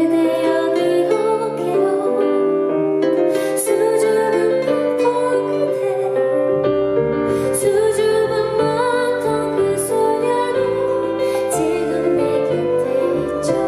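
Live performance of a gentle pop ballad with piano and a female singer; a low bass part comes in about halfway through.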